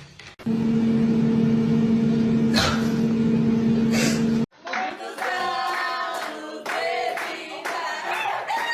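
A loud, steady electrical or mechanical hum for about four seconds that cuts off suddenly, followed by people's voices.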